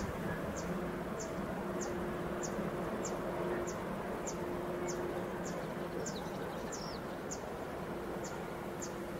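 Distant freight train passing: a low, steady rumble with a faint hum from its diesel locomotive. Over it, a short high chirp repeats about twice a second.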